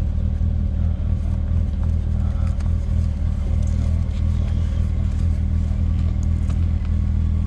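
Yamaha YZF-R3's parallel-twin engine idling steadily.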